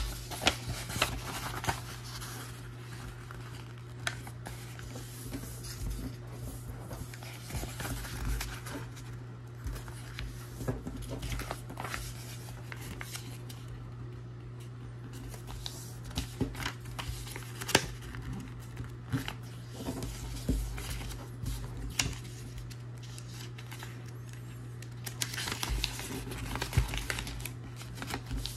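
A sheet of paper being folded and creased by hand on a hard tabletop: irregular rustles, swishes and sharp taps as the folds are pressed flat, over a steady low hum.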